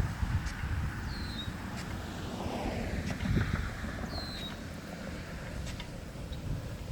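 Nelson P200 big gun sprinkler throwing its water stream: a steady hiss that swells for a second or so about two seconds in. Wind rumbles on the microphone, and there are a few faint clinks from the gun's drive arm.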